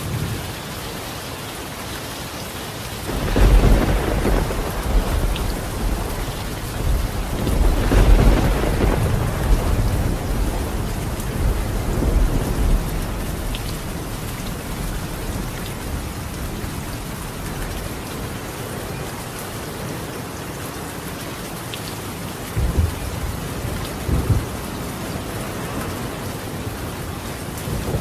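Steady rain falling on a tiled roof. About three seconds in, thunder rolls in, swells again around eight seconds and dies away, and two shorter, sharper thunder jolts come near the end.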